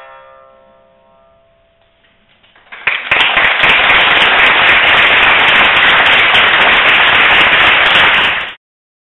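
Shamisen's last plucked notes ringing out and fading, then audience applause breaking out about three seconds in, loud and steady, cut off abruptly near the end.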